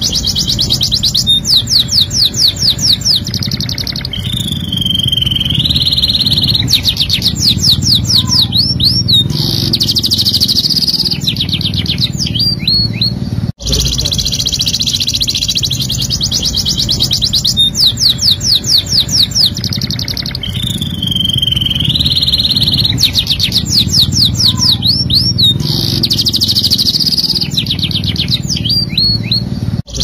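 Domestic canary singing a continuous, loud song of rapid high trills and rolls, broken by a few swooping whistled notes. The song breaks off for an instant about halfway through, and the same passage starts over. A low background hum runs underneath.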